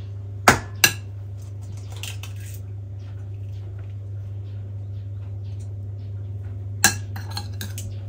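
Kitchen utensils and dishes knocking and clinking on a counter during baking prep. There are two sharp knocks close together about half a second in and another loud one near the end, followed by a few lighter clinks, over a steady low hum.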